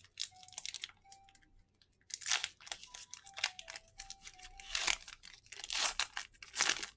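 Foil Pokémon booster pack wrapper being torn open and crinkled in several separate rough bursts.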